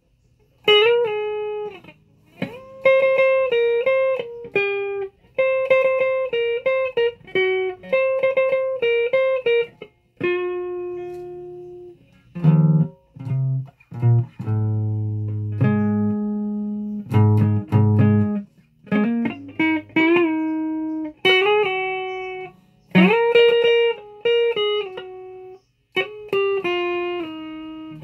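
Guitar played as single plucked notes in short phrases with brief pauses, some notes bent in pitch, and a run of lower notes about halfway through.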